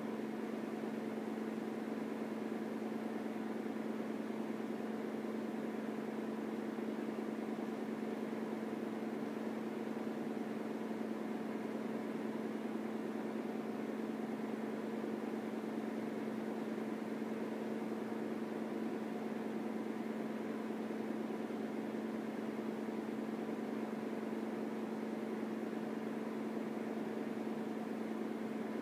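A small electric fan running with a steady whirring hum and an even low drone.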